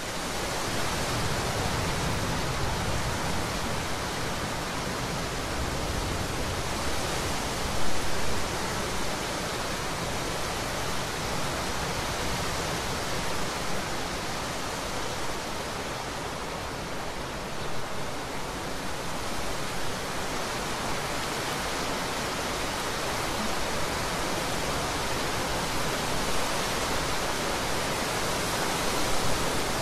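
Heavy rain pouring steadily, a dense, even hiss with some low rumble underneath and a brief louder surge about eight seconds in.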